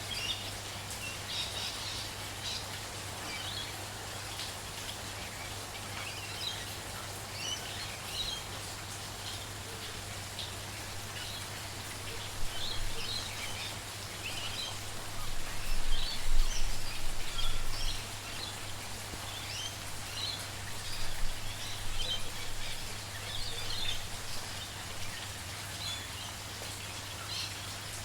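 Many small birds chirping in short repeated calls over the steady hiss of light rain. A steady low hum runs underneath, and a brief low rumble swells about halfway through.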